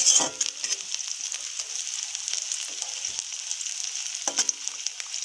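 Chopped onion sizzling steadily in hot oil in a metal wok, with a metal spatula stirring it and clicking against the pan a few times near the start and once at about four seconds.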